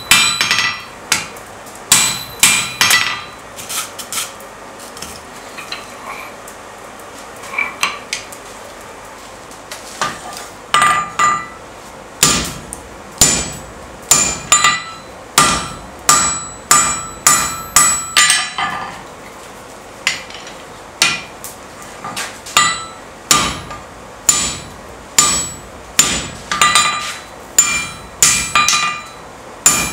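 Hand hammer striking a red-hot square bar on an anvil, bending it into a right angle, each blow followed by a brief metallic ring. The blows come in runs of about one to two a second, broken twice by a few seconds' pause.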